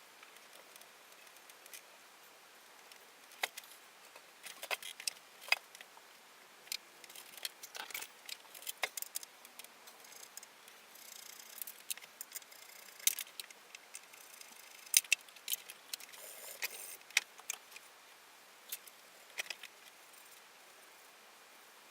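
Irregular light metallic clicks and clinks of small metal parts or hand tools being handled on a workbench, with a few louder clacks through the middle.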